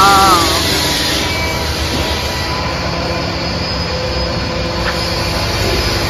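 Steady drone of construction-site machinery with a few faint steady hums in it, holding level throughout. A brief wavering tone sounds right at the start.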